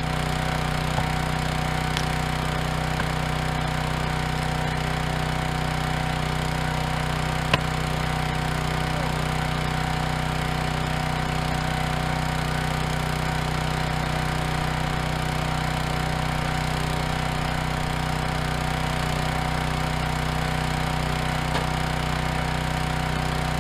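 Ruggedmade 22-ton log splitter's small gasoline engine idling steadily, with one sharp knock about seven and a half seconds in.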